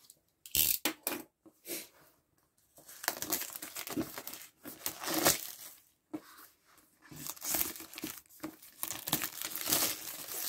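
Clear plastic shrink wrap being torn and pulled off a cardboard game box. It starts with a few sharp rips, then crinkles in dense bursts through the second half.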